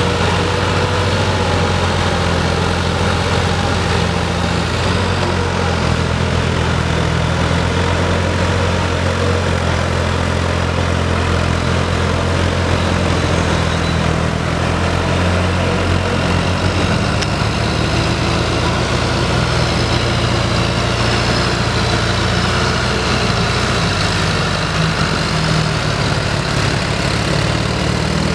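Farm tractor's diesel engine running steadily under load as it drives a rotary tiller through wet paddy mud.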